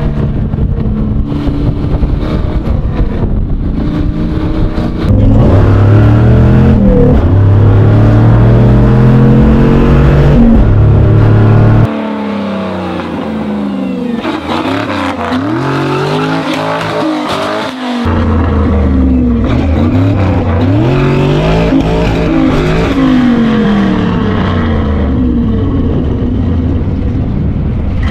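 A swapped-in GM V8 truck engine with side-exit exhaust in a Volvo, driven hard through the gears of a manual gearbox: the engine note climbs again and again and drops back at each gear change. For a stretch of about six seconds in the middle it is heard from farther off and quieter, before the loud close-up engine sound returns.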